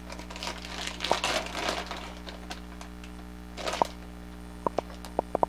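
Plastic packets of soft-plastic tube baits rustling and crinkling as they are handled, then a short rustle and a quick run of sharp clicks near the end, over a steady electrical hum.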